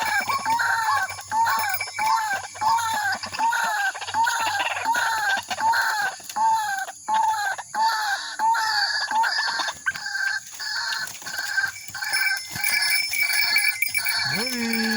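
White-breasted waterhen calling: a long run of repeated, arching 'wak' notes, about two a second.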